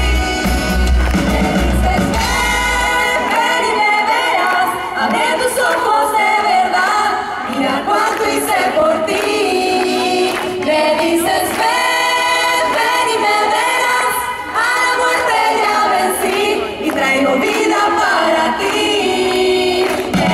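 Live pop-rock worship song: several women singing together into microphones over a band with acoustic guitar. About three seconds in the bass and drums drop away, leaving mainly the voices.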